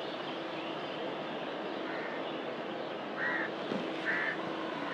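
A crow cawing twice, two short calls a little under a second apart, over a steady background din of the city park.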